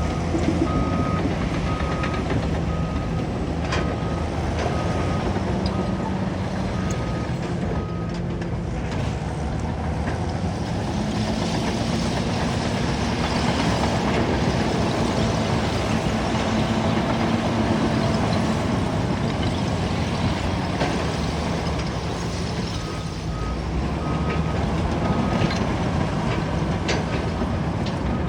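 Caterpillar bulldozer's diesel engine running under work, with a reversing alarm beeping about once every 0.8 s for the first eight seconds or so and again near the end. Occasional metal clanks sound over the engine.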